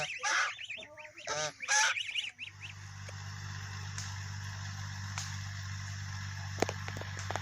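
Farmyard poultry calling repeatedly for about the first two seconds. A steady low hum with a faint hiss follows, with a few light clicks near the end.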